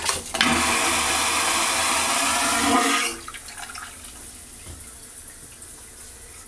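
A cruise ship's vacuum toilet flushing: a click, then a loud whoosh of air and water for about three seconds that stops sharply, followed by a quieter hiss.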